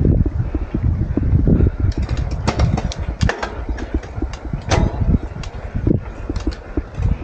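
Wind rumbling on a helmet-mounted camera microphone as a bicycle is ridden through soft sand, with a run of sharp clicks and rattles from the bike between about two and five seconds in.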